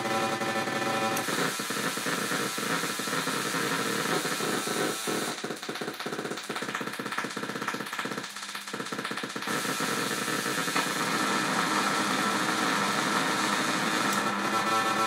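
NDR-113 electronic noise machine, built on the SN76477 sound-generator chip, putting out synthetic noise and buzzing tones as its knobs and switches are turned. A stack of buzzing tones breaks off about a second in into a dense noise. This turns into a rapid pulsing in the middle, and steady high tones settle back in near the end.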